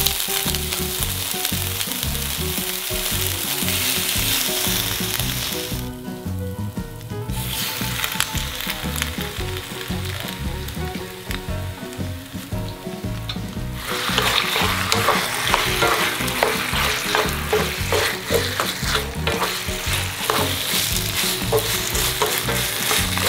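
Boiled rigatoni sizzling in a hot frying pan, then ragù sauce being stirred and tossed through the pasta. In the second half the sizzle is louder, with many quick clacks of the utensil against the pan.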